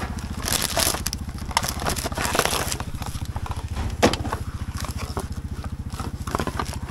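Plastic bags and containers crinkling and crackling as recyclables are handled, with a sharp click about four seconds in. Underneath, an engine idles with an even, fast low putter.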